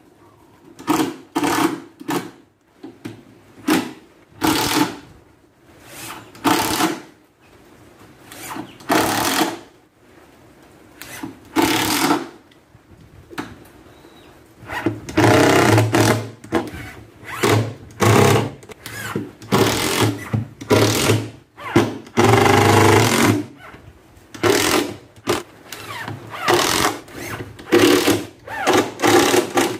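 Cordless drill driving screws into plywood in a run of short bursts, a second or two each, with brief pauses between them; the bursts come closer together in the second half.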